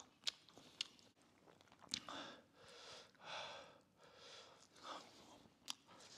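Faint chewing of soft braised pork knuckle meat, with a few light clicks.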